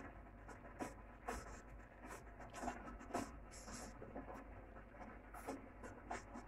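Faint, irregular light clicks and soft rustles of fingers tearing apart and handling soft steamed rice cakes (puto) over a plastic plate.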